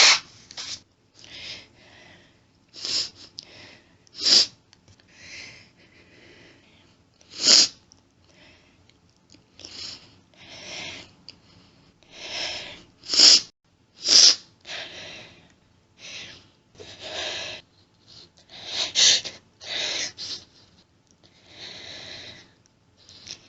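A woman sniffling over and over, with longer nose blows and hitching breaths between them, after an allergic sneezing fit. The sounds come one after another at uneven gaps, some short and sharp, some drawn out.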